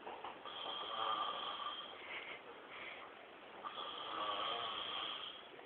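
A man snoring in deep sleep: two long snores, the second starting a little over three seconds after the first.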